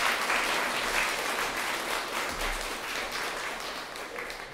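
Audience applauding, a dense patter of clapping that slowly tapers off toward the end.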